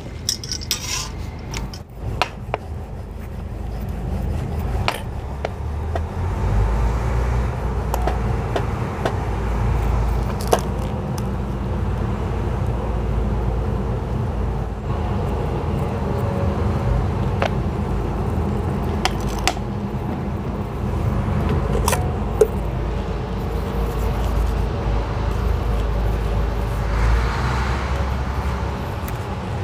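Scattered clinks and scrapes of steel utensils, a spatula against an iron tawa and steel plates, as parathas are stuffed and turned, over a steady low hum.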